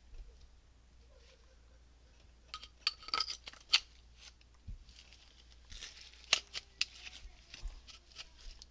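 Metal parts of an electric starter motor clicking and clinking as they are handled and fitted back together by hand. The clicks come in two short clusters, one a few seconds in and the sharpest, another about six seconds in.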